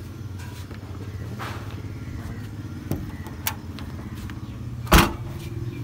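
Vehicle engine idling steadily, with two light clicks and then a loud thump near the end as the hatchback's boot lid is shut.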